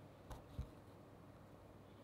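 Near silence: room tone, with two faint soft taps close together about half a second in.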